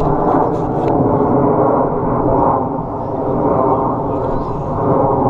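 Blue Angels F/A-18 jets flying overhead: a loud, steady jet roar with a faint humming tone in it, easing a little about three seconds in.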